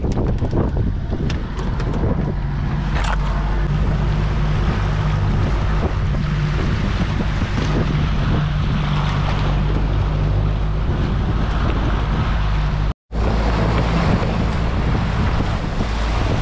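150-horsepower outboard motor running steadily with the boat under way, over the rush of the wake and wind on the microphone. A few sharp clicks near the start, and the sound cuts out for a split second about two-thirds of the way through.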